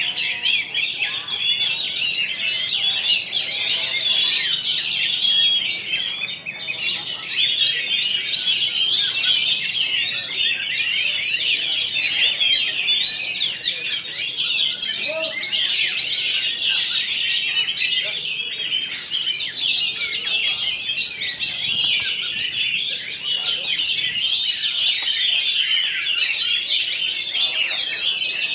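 Several caged oriental magpie-robins singing at once, a dense, unbroken tangle of short high whistled notes.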